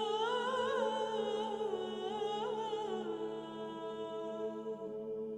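Background music: sustained held tones under a slow, gently wavering melody line that drifts lower about three seconds in.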